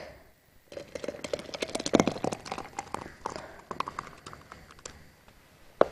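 Hot strawberry jam being poured from a pot into a glass jar while a metal spoon scrapes and knocks against the pot to push it out: a quick, irregular run of small clacks and scrapes that thins out near the end, with one sharp click just before it stops.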